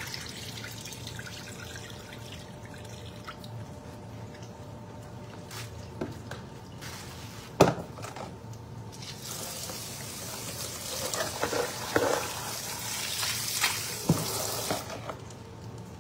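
Tap water running into a concrete sink for several seconds in the second half, while raw fish is being washed. Before it come scattered knocks of a plastic basin and utensils against the sink, the sharpest one about halfway through.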